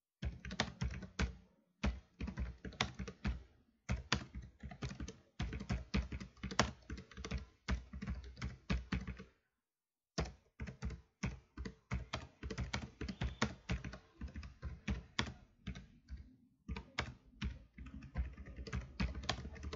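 Typing on a computer keyboard: runs of rapid keystroke clicks, with one short pause about halfway through.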